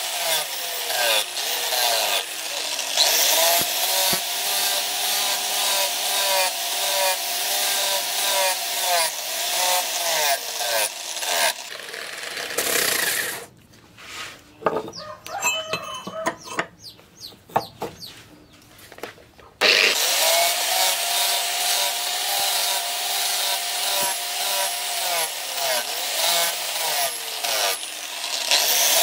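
Electric angle grinder with a sanding disc running against a steel axe head, a steady abrasive scrubbing over a motor whine whose pitch dips and recovers as the disc is pressed on. It stops a little before halfway, leaving a quiet gap of about six seconds with faint scattered sounds, then starts again abruptly and sands on.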